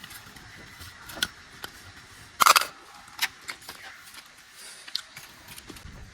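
Scattered small clicks and handling noises, with one louder short burst about two and a half seconds in.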